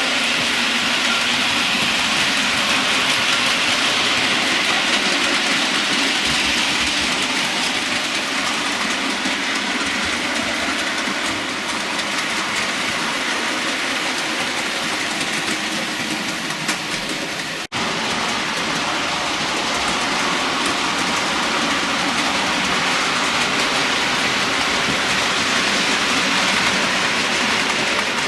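OO gauge model locomotive running along the layout track: a steady whirr of its motor and wheels on the rails. A brief sharp break comes about two-thirds of the way through.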